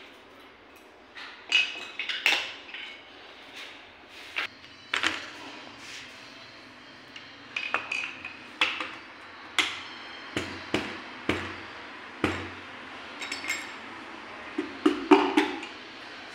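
Metal engine parts and tools being handled at an engine block: irregular sharp metallic taps and clinks, some ringing briefly, as a piston is worked on and fitted.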